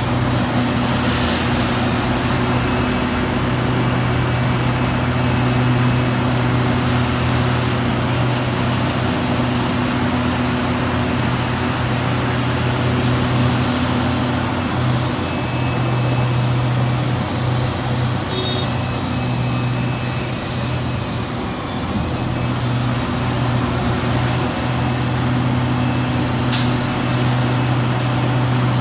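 Liebherr 976 crawler excavator's diesel engine running steadily under working load, a strong low hum whose note dips briefly a few times in the middle as the machine swings and dumps. A short sharp hiss comes near the end.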